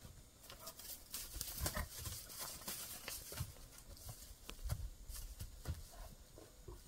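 Irregular soft hoof thuds and scuffing as a Fjord horse and a donkey walk about on dirt and wood chips, with a few heavier footfalls.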